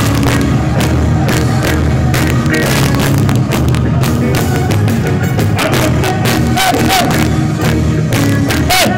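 Loud live reggae music over a concert sound system, with heavy bass, a steady drum beat and crowd noise beneath, picked up by a phone's microphone.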